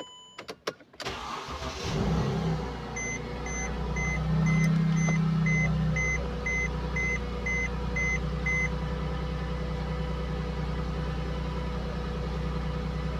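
Mercedes-Benz GLK's engine starting: a few clicks, then the engine cranks and catches about a second in, rises briefly, and settles into a steady idle. A warning chime beeps about twice a second for several seconds while it runs.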